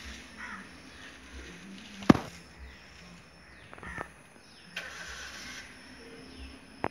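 Outdoor ambience with a faint steady hum, a sharp click about two seconds in and a smaller one near the end, and a few faint high falling chirps.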